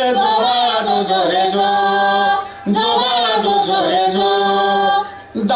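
Voices singing the refrain of a Marathi cradle song (pālṇā) between verses: two long phrases with held, wavering notes, each ending in a brief break, about two and a half seconds in and just before the end.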